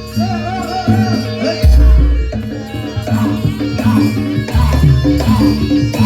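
Javanese barongan accompaniment music: rhythmic drumming and rattling percussion under a wavering melody line, with two deep low strokes about three seconds apart.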